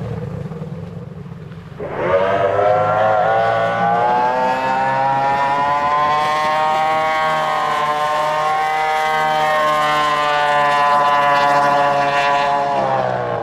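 Racing powerboat engine at full throttle: a sudden rise to high revs about two seconds in, then a steady high-pitched run that creeps slightly upward and drops away near the end.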